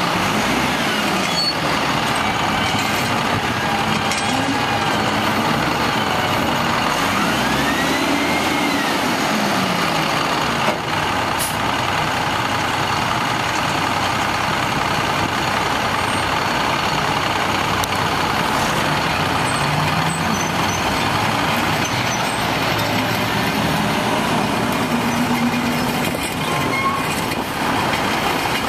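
WhiteGMC Xpeditor WX-42 cabover's Cummins diesel engine running under load and revving up and down several times while the truck works its Amrep roll-off hoist and container.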